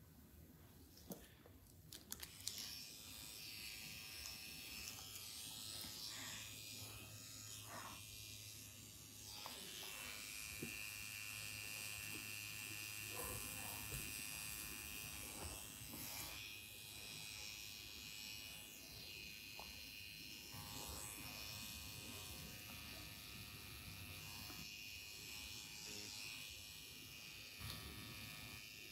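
Permanent makeup pen machine running with a steady, high-pitched buzz while it tattoos eyeliner along the upper lash line. It starts about two and a half seconds in, after a few light clicks.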